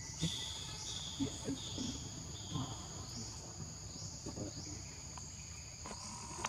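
Insects droning steadily at a high pitch, with a run of four shorter repeated notes in the first few seconds.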